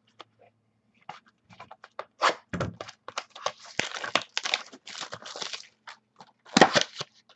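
Plastic card packaging and trading cards being handled: irregular crinkling, crackling and clicks, with a louder crack about six and a half seconds in.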